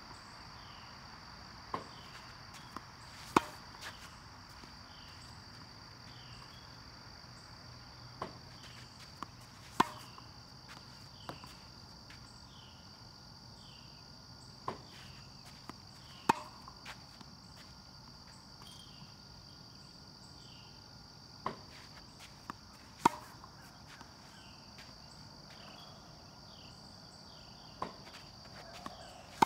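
Tennis racket hitting balls, a loud sharp pock about every six and a half seconds, one-handed topspin backhands fed by a ball machine. Each hit comes about a second and a half after a fainter knock. A steady high drone of crickets or katydids runs underneath.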